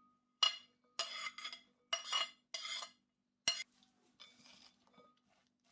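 Metal spoon scraping and clinking against a plate and a glass mixing bowl in four or five short strokes as shredded vegetables are pushed off the plate, ending in a sharp clink about three and a half seconds in. Softer rustling of the vegetables in the bowl follows.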